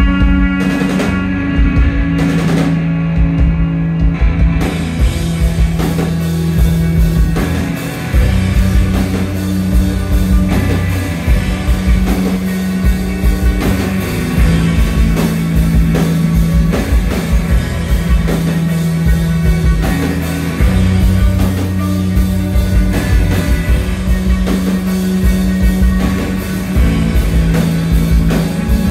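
Instrumental post-rock band playing loudly live: electric guitars over a steady repeating bass line, with the full drum kit and cymbals coming in about four seconds in and driving on from there.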